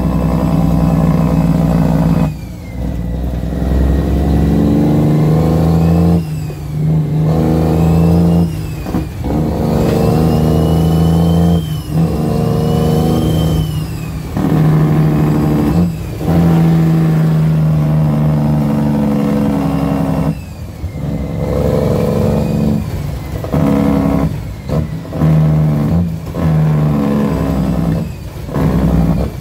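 Cummins L10 diesel engine of an International truck under way, heard from inside the cab, pulling and easing off again and again with brief drops in sound every few seconds as the throttle is lifted. A high whistle rises and falls with the engine.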